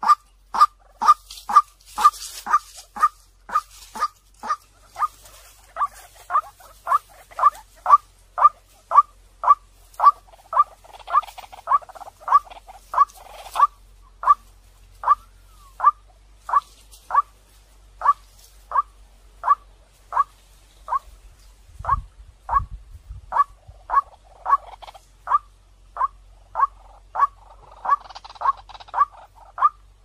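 White-breasted waterhen calling: one short, clear 'kwak' note repeated steadily about twice a second. It is a recording used as a decoy call to lure waterhens.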